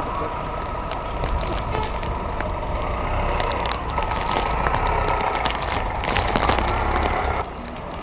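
Strong blizzard wind blowing across the microphone: a steady rushing noise with a low rumble and crackle, louder about six seconds in, then dropping suddenly near the end.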